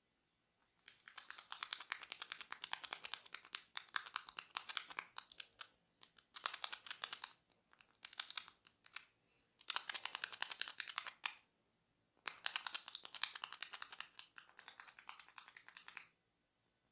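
Close-miked crackly scratching from a barber's hands or tool working on the head or ear: dense quick crackles in five bouts of one to five seconds, with short pauses between.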